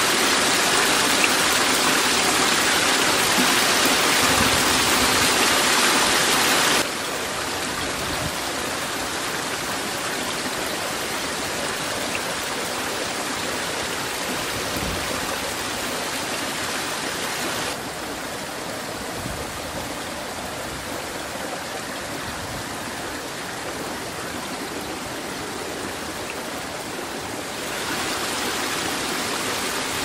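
Rushing water of a fast-flowing, muddy stream and waterfall, a steady even wash of noise. It drops abruptly in loudness about seven seconds in and again near eighteen seconds, then steps back up near the end where edited clips change.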